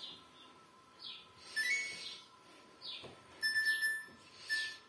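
Samsung washing machine control panel beeping as its program dial is turned and buttons are pressed: a rising two-note beep about a second and a half in, a longer steady beep around three and a half seconds, then a short beep near the end, with soft swishes of the hand on the panel between them.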